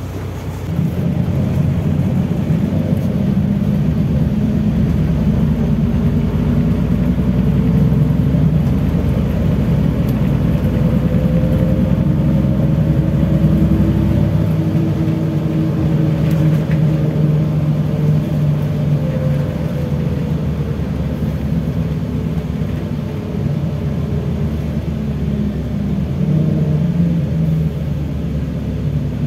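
LiAZ-5293 low-floor city bus running under way, its engine and drivetrain heard from inside the passenger cabin as a steady drone. It grows louder about a second in, and a whine rises and falls slowly in pitch.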